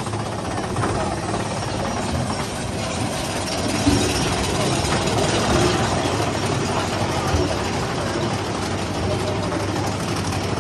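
Roller coaster mine train rumbling and rattling along its track with a steady clatter and a few knocks, mixed with wind and riders' voices.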